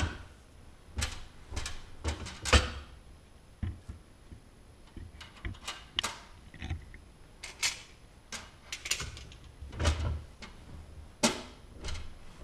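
Hand-lever arbor press crimping Dzus fastener grommets into a sheet-metal panel: irregular sharp clicks and metal knocks as the lever comes down and the panel and fasteners are shifted, with a few louder knocks among them.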